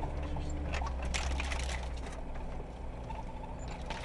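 Mitsubishi Pajero driving over a rough grass track, heard from inside the cabin: a steady low engine drone, with a cluster of knocks and rattles about a second in.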